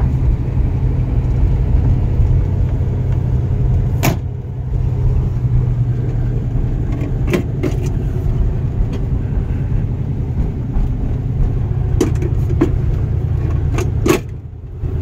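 1968 Plymouth GTX's 440 V8 idling steadily, heard from inside the cabin. A few sharp clicks and knocks from the interior trim being handled sound about four, seven, twelve and fourteen seconds in.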